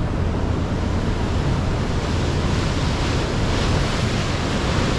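Steady wind buffeting the microphone with the rush of water and air, heard from the bow of a moving tour boat.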